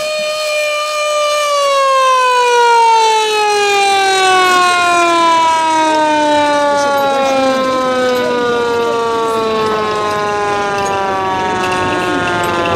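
A siren's wail that holds one pitch for about a second and a half, then slowly winds down in pitch for about ten seconds.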